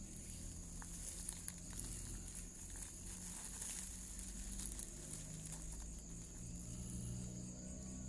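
Crickets chirring steadily at night in one unbroken high-pitched band, with faint scattered rustles and clicks from dry grass or handling close to the microphone.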